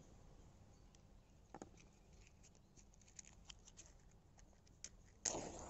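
Faint small taps and clicks of handling, then near the end a short scratchy burst of a matchstick being struck and flaring.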